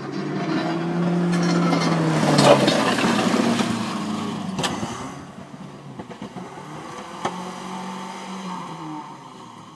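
An SUV's engine revving as the truck drives past pushing snow with its plow, loudest about two and a half seconds in, with a hiss of snow thrown off the front. There is a sharp knock about halfway through, then the engine is heard again more faintly as it pushes up the snow bank, fading near the end.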